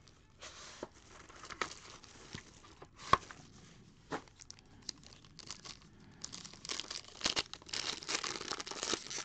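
Foil trading-card pack crinkling as it is handled, with a sharp tap about three seconds in; from about six seconds in, dense crinkling and tearing as the foil wrapper is ripped open.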